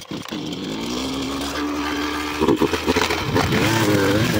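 String trimmer's engine running with a low pitch that slowly climbs, then revved harder about halfway through, the pitch wavering up and down.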